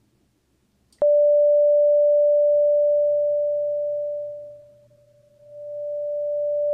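A steady sine-wave tone from a Serum synth's two sine oscillators starts suddenly about a second in. Around four and a half seconds in it fades almost to silence as the second oscillator's phase nears the opposite of the first and the two cancel out, then it swells back to full level.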